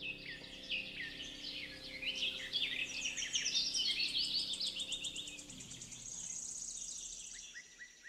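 Birdsong: several small birds chirping in a dense chorus of short high notes, with a fast, high trill near the end. Underneath, a low held tone fades out a little after halfway.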